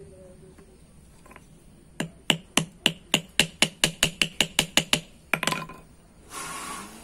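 Small hammer tapping rivets to fix an oversize lining onto a drum-brake shoe, the shoe resting on an upturned engine valve used as an anvil. About a dozen sharp metal taps come at about four a second, then two more, and a short rasping noise follows near the end.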